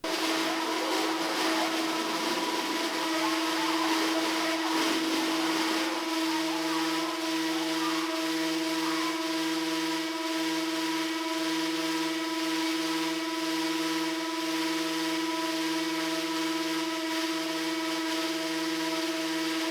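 Feedback drone from a drum and loudspeaker, played with objects on their surfaces: several steady held pitches over a dense noisy hiss, cutting in suddenly, with a lower hum joining about six seconds in.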